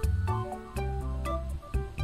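Background music: plucked notes over a steady bass line.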